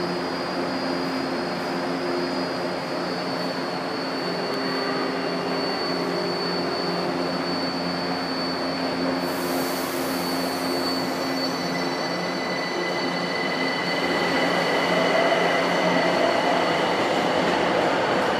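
São Paulo Metro train standing at an underground platform, its onboard equipment humming steadily with a thin high whistle over it. About nine seconds in there is a sudden hiss that fades over a couple of seconds, and the noise grows louder over the last few seconds.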